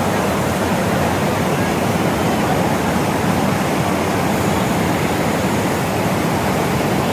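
Waterfall, water pouring and splashing in a steady, loud, unbroken rush.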